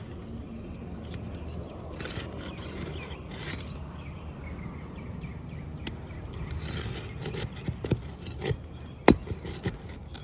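Asphalt roof shingles being worked loose: scraping and rustling of the shingles, then several sharp clicks and taps in the second half, the loudest about nine seconds in, over a steady outdoor background hum.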